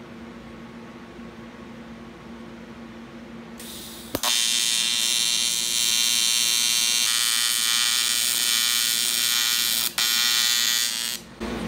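A steady hum, then about four seconds in a wire-feed welder's arc strikes with a click and runs as a loud, even buzz for about seven seconds, breaking briefly near the ten-second mark, while a bead is laid along a crack in a cast aluminium engine block.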